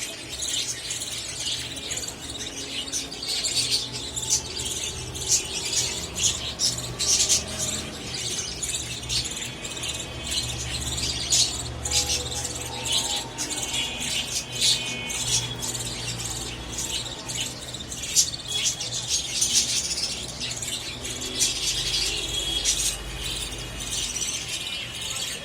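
Small birds chirping: many short, sharp, high-pitched chirps in quick irregular succession, with a low rumble underneath.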